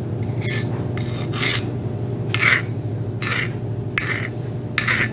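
A file rasping across a forged mild-steel hardy shank in about six strokes, a little under a second apart, over a steady low hum. The file is biting in, a hardness test showing that the steel did not harden.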